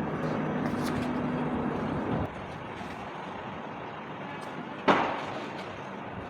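A steady engine-like rumble with a low hum that cuts off about two seconds in, then a single sharp knock with a short ring near the end, with work going on around the air conditioner casing.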